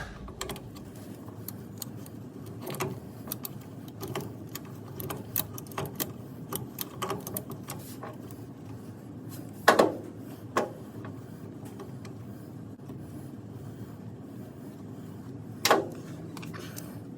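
Scattered light clicks and knocks of tools and parts being handled during work on a car's brake light switch wiring, with two louder short sounds that fall in pitch, about ten and sixteen seconds in.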